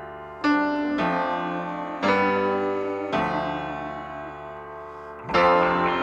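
Background music: piano chords struck about once a second, each ringing out and fading.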